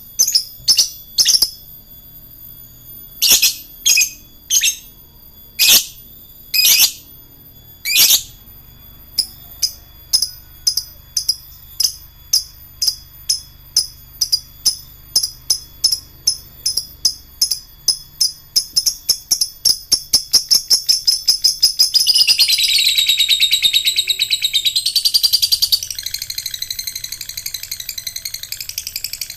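Lovebird song: a few loud, sharp, high chirps, then a run of quick ticking chirps that speeds up and turns, in the last third, into a continuous rattling trill. This is the long 'ngekek' call prized in song lovebirds.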